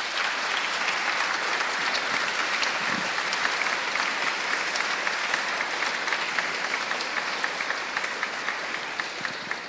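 Audience applauding: a steady spread of many hand claps that thins and fades near the end.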